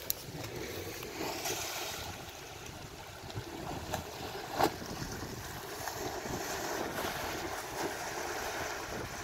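Steady wash of rushing river water flowing over rocks and a small spill. A short knock about four and a half seconds in.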